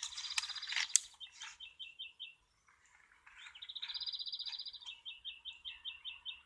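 Songbirds singing: fast series of repeated high chirps and trilled phrases, one longer trill about halfway through, with a couple of sharp ticks in the first second.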